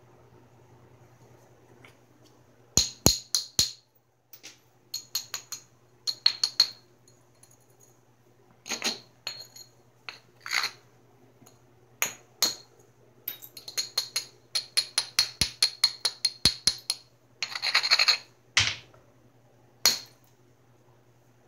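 Flintknapping on a Georgetown flint biface: groups of sharp, high clicking taps and scrapes as a small hand-held tool works the stone's edge. In the latter half comes a fast run of light clicks, about eight a second, then a short scraping rasp and two harder single strikes.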